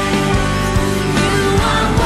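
Contemporary worship song played by a band, with held chords over a steady beat.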